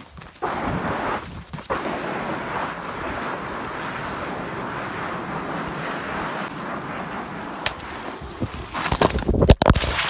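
Steady rushing noise while walking on a snowy path. About nine seconds in come loud, irregular crackles and rubbing as the phone is handled and its lens covered.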